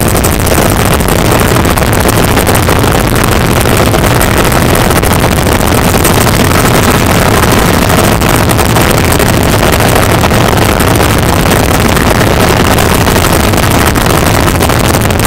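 Helicopter in flight heard from inside the cabin: loud, steady engine and rotor noise with no change in pitch.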